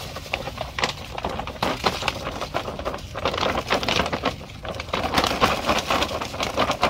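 Woven plastic fertilizer sack crinkling and rustling as it is shaken and tipped out, with a steady crackle of many small clicks, while fertilizer crystals pour into a drum of water.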